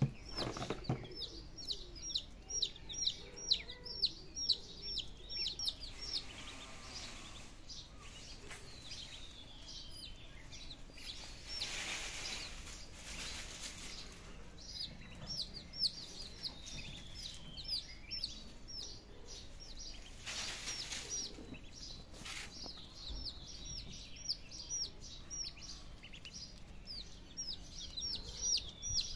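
Chicks and ducklings peeping: runs of short, high, downward-sliding peeps, about four a second, with pauses between the runs. Twice in the middle there are a few seconds of rustling noise.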